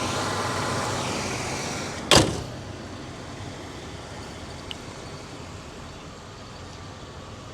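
A car door shuts with a single sharp thump about two seconds in, over a steady rushing background that drops quieter after it.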